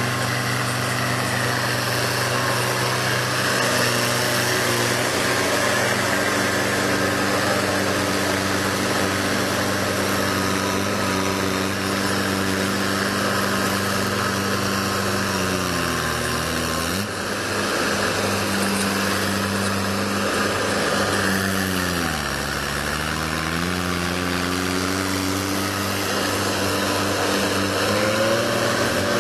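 Engine of a heavy machine running steadily, its speed dipping twice as if under load and recovering, then rising near the end.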